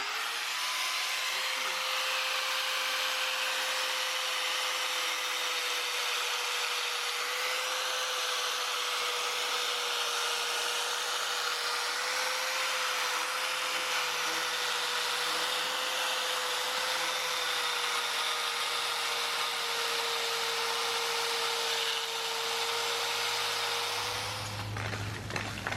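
Small power tool fitted with a mortar rake running steadily with a constant whine and grinding hiss as it grinds old mortar out of a stone joint. It stops near the end.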